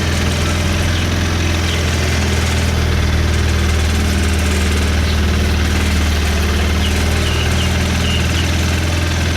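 Boat engine running steadily with a low, even hum that does not change in pitch or level.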